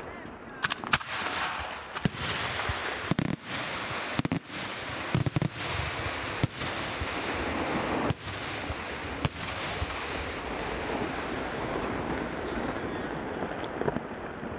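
Aerial fireworks shells bursting: about ten sharp bangs spaced roughly a second apart over the first nine seconds, over a continuous dense crackle that carries on after the bangs thin out.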